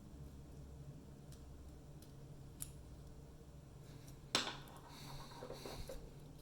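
A padlock being taken apart by hand: a few faint ticks, then a sharp metal click about four seconds in, followed by a second or so of scraping and rattling of small metal lock parts and tools.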